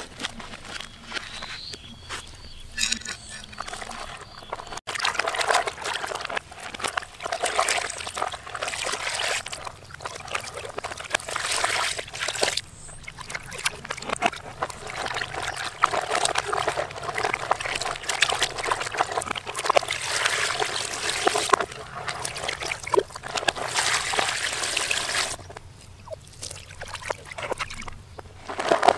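Water sloshing and trickling in a plastic basin as a live spiny lobster is rinsed by hand. The splashing starts about five seconds in, goes on unevenly, and dies down a few seconds before the end.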